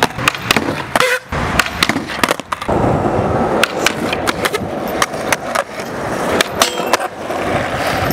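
Skateboard wheels rolling on concrete, with many sharp clacks as the board is popped, hits the ledge and lands.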